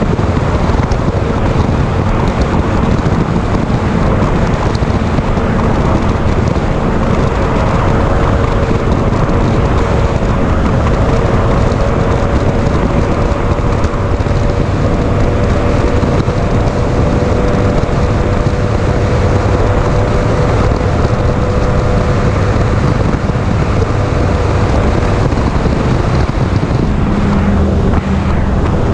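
Mercury 300XS outboard pushing a Bullet 20XDC bass boat at speed: a steady engine drone with wind buffeting the microphone and water rushing past the hull. The engine note shifts a little near the end.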